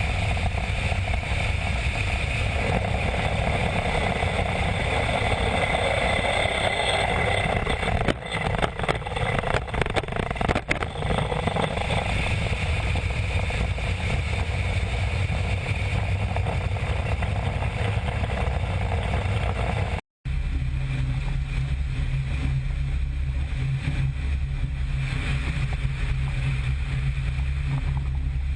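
Steady, loud noise of a C-17 Globemaster's turbofan engines. About twenty seconds in it drops out for an instant and comes back with a deeper hum.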